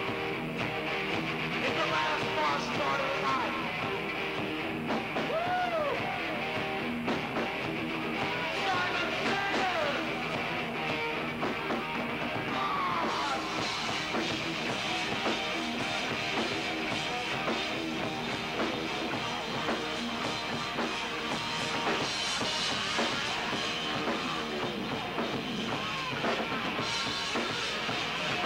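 Live rock band playing: a singer's voice over electric guitar and drum kit, a steady full mix.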